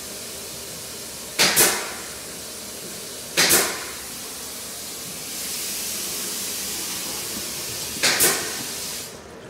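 Water hissing through a sink's shutoff valve and supply line as the valve is adjusted, the hiss growing brighter and louder about five seconds in. Three short, sharp bursts stand out above it.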